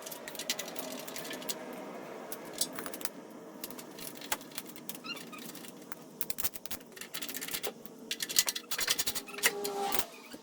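Small metal parts and hand tools clicking and clinking in irregular taps while the carburetor, throttle linkage and covers of a Honda GX390 generator engine are put back together, with denser clicking in the second half.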